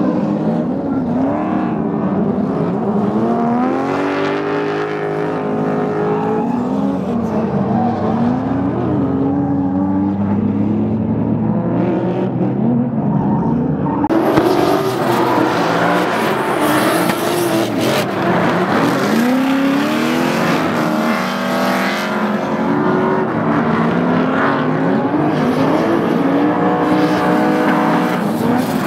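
Drift cars' engines revving hard in a tandem drift, pitch swinging up and down over and over as the drivers work the throttle, with tyre screech underneath. The sound changes abruptly about halfway through as a different pass begins.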